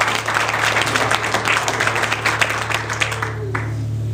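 A church congregation applauding, dense hand clapping that dies away about three seconds in, over a steady low tone.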